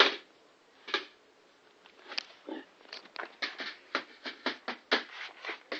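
Electric flyswatter in use: a loud sharp click at the start, then irregular clicks that come several a second from about three seconds in.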